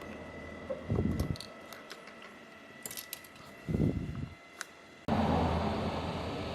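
Small clicks and taps of hands and tools working on an opened smartphone during disassembly, with a couple of dull bumps. About five seconds in, the background abruptly turns into a louder steady hiss.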